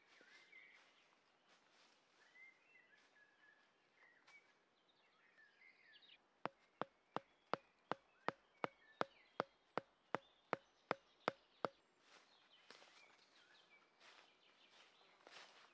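A stake being hammered into the forest floor with an orange-handled tool: about fifteen sharp, evenly spaced blows, close to three a second, each with a short ring, starting about six seconds in. Faint birds chirp before the hammering.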